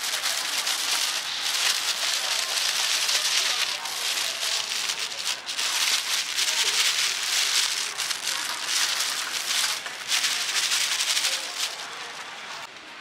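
Flour pouring from a large plastic sack into a big aluminium pot, a steady rushing hiss with the plastic crinkling. It breaks off briefly twice and tails away near the end.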